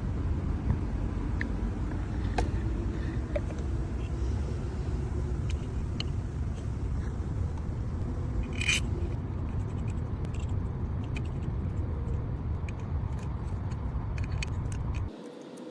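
Car engine running with a steady low rumble, cutting off abruptly about 15 seconds in; a few light clicks sound over it.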